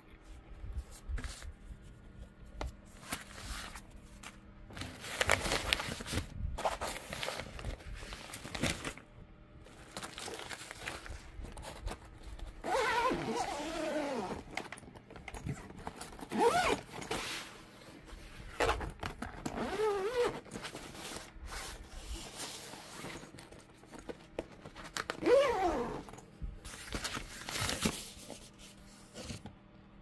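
A suitcase's interior zipper being run back and forth several times, some runs giving a brief rising and falling whine, mixed with the rustle of the nylon lining being handled.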